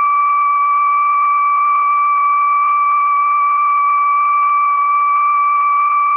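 Nuclear plant area gamma alarm sounding one steady, unbroken high tone, heard over a telephone line. It warns of gamma radiation around the alarm: the signal to leave the immediate area.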